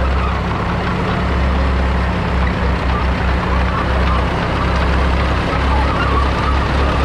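1937 Allis-Chalmers Model M crawler's 4.9-litre four-cylinder petrol/TVO engine running steadily as the crawler drives slowly along.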